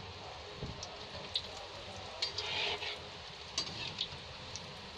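Bread slices deep-frying in hot refined oil. There is a steady sizzle with sharp crackles and pops every second or so, and a busier patch of crackling midway.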